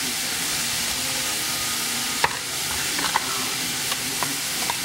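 Diced vegetables sizzling as they stir-fry in a frying pan, stirred with a wooden spatula, with a few light knocks of the spatula against the pan.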